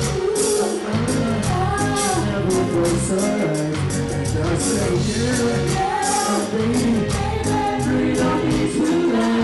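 Live reggae music: a singer's voice over a band with a steady beat and a deep bassline, played over a concert sound system.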